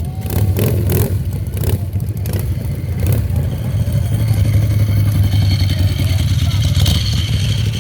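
Harley-Davidson V-twin motorcycle engines running loud and steady, with a few sharp clacks in the first couple of seconds.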